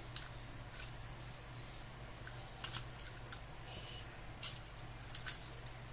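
Hard plastic parts of a Transformers-style action figure clicking and knocking as they are handled and folded, a few light irregular clicks.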